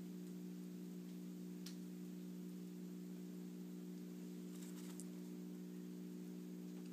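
Steady low electrical hum with several overtones, and a few faint clicks about a second and a half in and again near five seconds.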